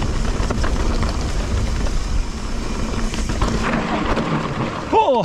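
Mountain bike riding on a dirt trail heard from a GoPro on the rider: wind buffeting the microphone with tyre and frame rattle, a steady rushing noise that dies down about four seconds in as the bike slows. A man's voice starts right at the end.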